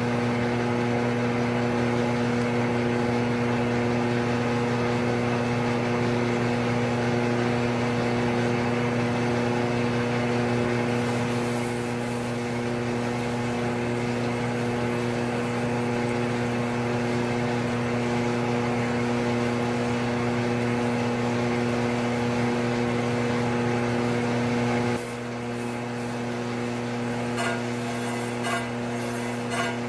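Crankshaft grinder running, its stone wheel grinding the damaged, out-of-round rod journal of a Triumph 650 unit crankshaft, over a steady electric motor hum. About 25 seconds in the sound drops as part of the machine shuts off, and a few light clicks follow.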